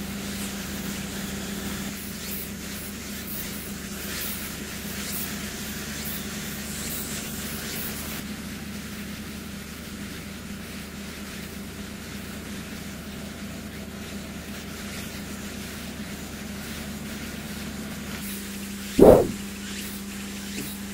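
Steady outdoor hiss with a low hum, faint rustling during the first several seconds, and one brief loud sound near the end.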